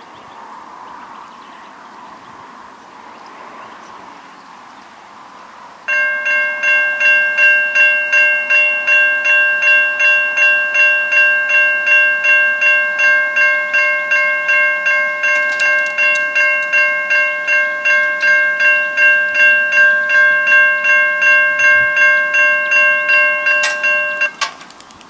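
Railway level crossing's electronic warning bell ringing in fast, even pulses, starting suddenly about six seconds in as the crossing activates for an approaching train. It cuts off abruptly near the end, once the boom barriers are down.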